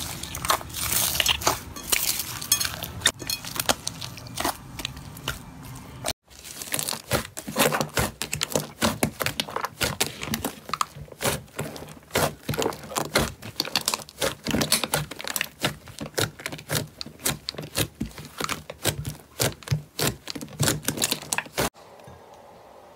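Hands squeezing and kneading slime, making dense crackling and popping. First a foam-bead slime crunches, then after a break about six seconds in, a thick slime gives rapid sticky clicks and pops as it is squished. It turns much quieter near the end.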